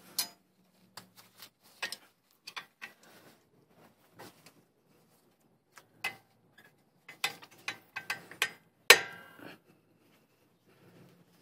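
Scattered metal clicks and taps as a screwdriver works a brake pad retaining pin through a brake caliper and the pads' anti-rattle spring clip. The loudest is a sharp clink with a brief ring about nine seconds in.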